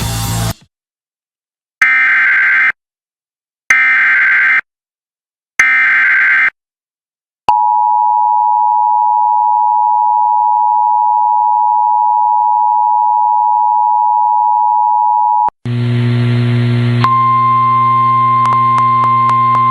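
Emergency Alert System SAME header: three short bursts of warbling digital data tones, each about a second long and about a second apart. Then the EAS two-tone attention signal holds steadily for about eight seconds. Near the end a steady electronic drone with a high tone and faint regular ticking starts.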